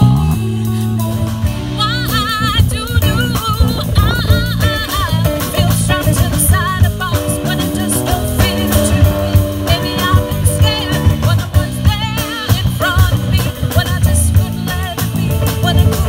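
Live band playing: a woman sings with a wavering vibrato, coming in about two seconds in, over electric guitar, electric bass and a drum kit.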